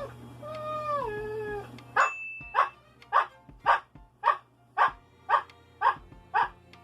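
Siberian husky barking out a count: short, even barks about twice a second, answering with the number of letters in a name. Before the barks start, about two seconds in, there is a falling, whining note.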